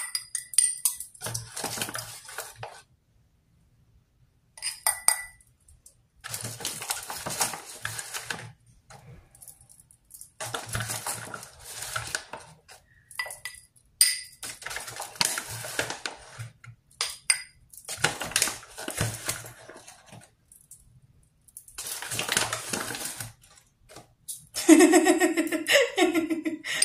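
A metal spoon scooping flour from a bag into a drinking glass, in repeated scraping bursts, with the spoon now and then clinking and ringing against the glass. Laughter near the end.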